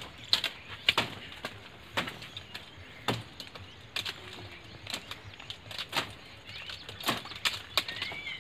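A blade lashed to a long pole chopping into the fleshy, spiny stems of a thor (Euphorbia) hedge: sharp, irregular strikes, about one a second.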